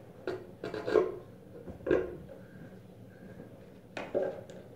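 Hand tools and parts being handled off to one side: a few short knocks and scraping rubs as a crimping tool is set down and the next item is picked up.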